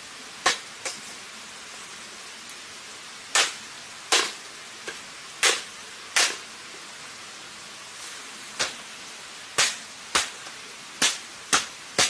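A blade chopping into branches and saplings: about a dozen sharp woody strikes at uneven intervals, each dying away quickly, over a steady background hiss.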